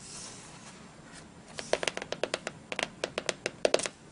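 A soft swish as a spiral-bound journal's card cover is closed. Then, about a second and a half in, a quick irregular run of about twenty fingernail taps on the closed cover.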